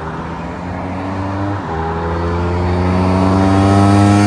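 Ducati 748 SP's 90-degree V-twin engine accelerating hard, its pitch and loudness rising steadily with one short dip about one and a half seconds in.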